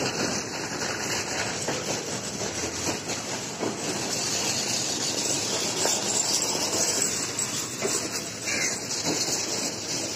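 Sleeper-class passenger coaches of an Indian Railways express rolling past a platform: a steady rumble and rattle of steel wheels on the rails, with faint clicks over the rail joints.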